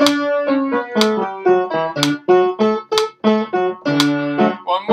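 Upright piano playing a vocal warm-up of a scale followed by an arpeggio, one note after another in a stepping pattern. A sharp tick about once a second comes from a running metronome.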